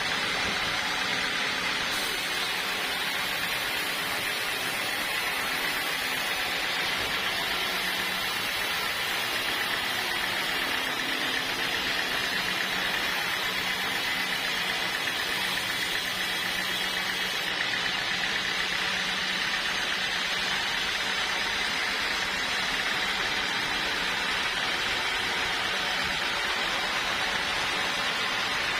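Sawmill saw machinery running steadily: an even, unbroken mechanical whir with a low hum underneath.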